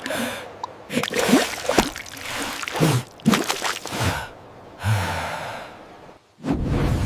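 An animated character's gasps and breathy vocal noises, a string of short separate sounds with brief pauses between them.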